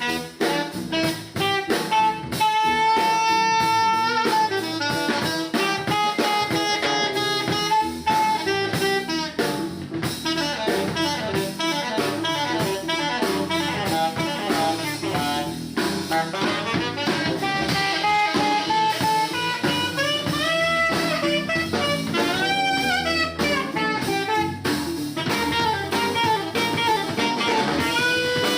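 Jazz playing: a horn melody with held and bending notes over a drum kit.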